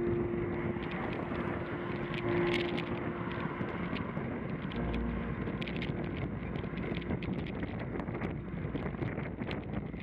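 Wind buffeting the microphone of a camera mounted on a moving bicycle's handlebars, with irregular small clicks and rattles from the bike riding over the road surface. A little background music fades out at the start.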